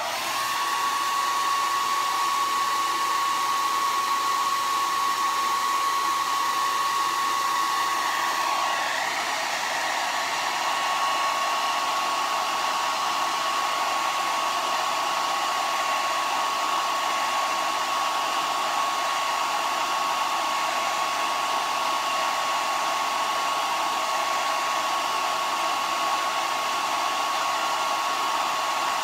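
Handheld hair dryer switched on and running steadily: an even rush of blown air with a steady whine from its motor. Its sound shifts slightly about eight seconds in, then carries on unchanged.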